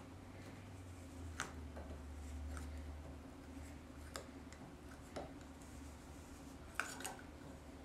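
Screwdriver tip scraping and clicking against the steel back plate of a combination padlock as it is pried around the plate's edge: about five faint, sharp clicks, the loudest pair near the end.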